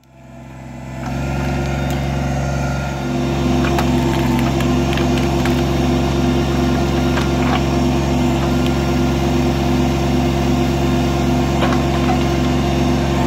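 Kubota BX25D compact tractor's three-cylinder diesel engine running steadily, with a regular pulsing beat of about two a second and a few faint clicks and knocks from the backhoe at work. It comes in over the first second.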